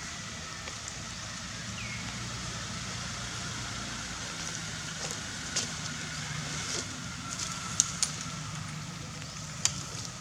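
Steady low hum of an engine running, with a few sharp clicks and crackles in the second half.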